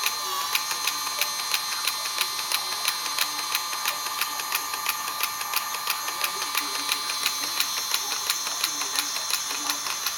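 Miniature steam-engine model on a wearable bracer running: a steady whine with rapid, even clicking from its moving parts.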